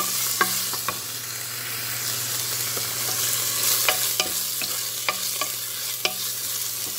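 Diced chicken breast sizzling in a hot pan while a wooden spatula stirs it, clicking against the pan now and then.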